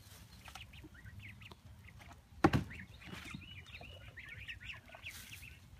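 Chickens clucking and chirping, with one loud thump about two and a half seconds in.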